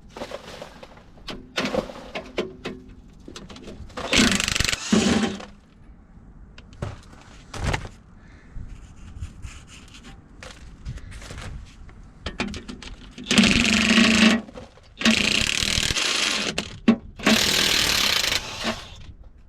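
Power impact wrench running in four bursts of about a second each, backing out the screws of an excavator's final drive cover plate. Short clicks and clanks of metal come between the bursts.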